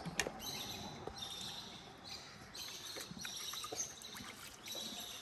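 Small birds chirping and twittering in repeated short high bursts, with a few light clicks or knocks, the sharpest just after the start.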